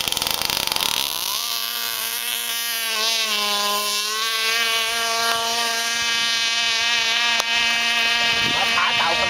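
Electric radio-controlled model boat's motor whining at speed as it races across the water. The pitch climbs about a second in, dips briefly around three to four seconds, then holds steady.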